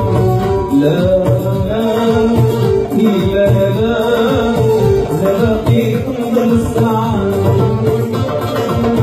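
Live Moroccan music: an oud playing a melody with keyboard accompaniment.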